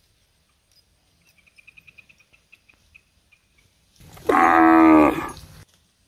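A cow mooing once, a single call of about a second and a half that starts about four seconds in, its pitch dropping slightly toward the end.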